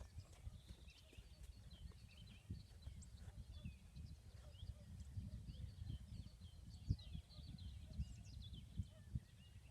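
Many small birds chirping and singing in a dawn chorus, over a low wind rumble on the microphone, with a few dull knocks, the loudest about seven seconds in.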